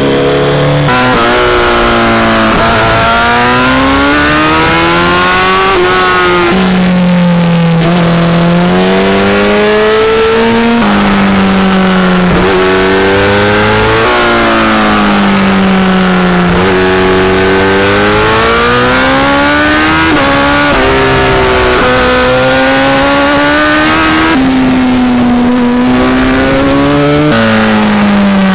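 Racing superbike engine at full lap pace: the revs climb hard through the gears with a sharp drop at each upshift, then sweep down under braking into corners and rise again out of them, over and over.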